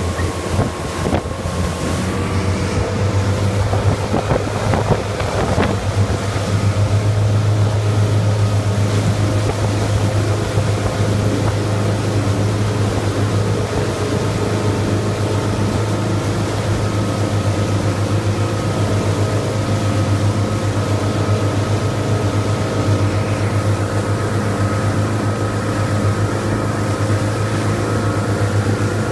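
Motorboat engine running steadily under way, a constant low drone over the rush of water.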